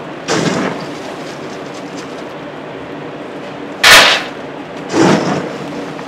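A stainless steel scoop digs into a bag of dry puffed grain balls with a crunchy rustle, then pours them into a stainless steel bowl with a loud rattling clatter about four seconds in. About a second later comes another shorter scrape-and-rustle as the scoop goes back into the bag.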